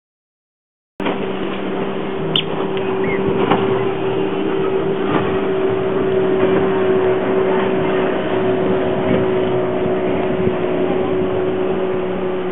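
After about a second of dead silence, a steady engine drone with a low hum sets in and runs on. A few sharp clicks from a boat-tailed grackle sound over it in the first few seconds.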